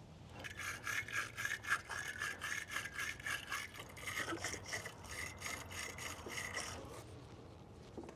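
Battery terminals being scrubbed clean by hand to remove corrosion, in quick, even back-and-forth strokes of about five a second that stop about seven seconds in.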